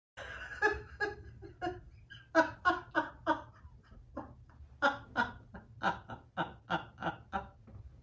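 A woman laughing hard and uncontrollably in a long run of short, rhythmic bursts, about three a second.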